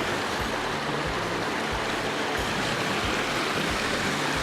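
Small mountain stream rushing steadily over a rocky waterfall, heard close up.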